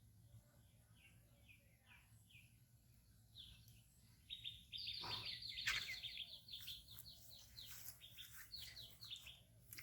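Small birds chirping: faint, short falling chirps, a few at first, then a fast run of them from a little before halfway to near the end. A brief knock comes about halfway through.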